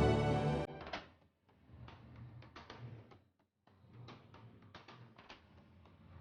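Background music that cuts off suddenly under a second in, followed by faint scattered clicks and ticks over a low hum.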